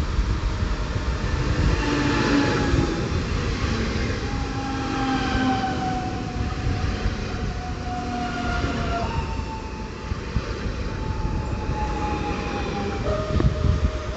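Red-and-yellow electric multiple unit passing close by: wheels rumbling on the rails under the whine of its electric drive. The whine falls slowly in pitch, jumps up once about nine seconds in, then falls again.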